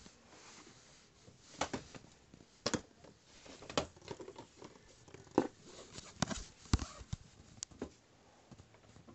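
Handling noise: irregular knocks, clicks and rustles as the camera is moved about close to the microphone.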